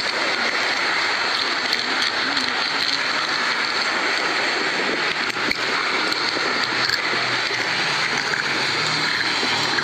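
Steady rushing noise, even and unbroken, with a faint low hum joining about halfway through.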